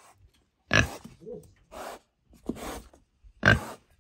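A pig grunting in about five short bursts, the loudest about a second in and near the end.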